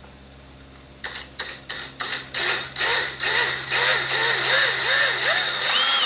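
Ryobi cordless drill drilling a small pilot hole into a fiberglass rocket body tube. About a second in, the trigger is pulsed in short bursts, each rising then falling in pitch, that come longer and closer together until the drill runs steadily near the end.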